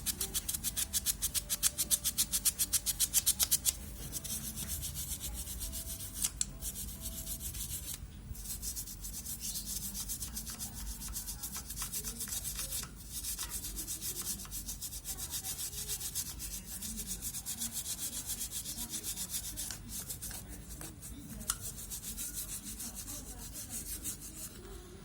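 Scrubbing or rubbing, with fast, even strokes several times a second for the first four seconds, then steadier rubbing with a few clicks.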